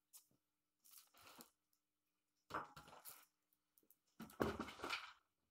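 Scattered rustling and handling noises in three short irregular bursts, the loudest a little after four seconds in.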